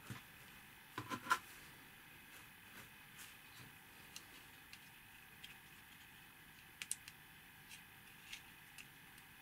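Faint clicks and light handling noise of stiff plastic kit pieces being turned in the hands and pressed together, with a quick cluster of sharper clicks about a second in and two more close together near seven seconds.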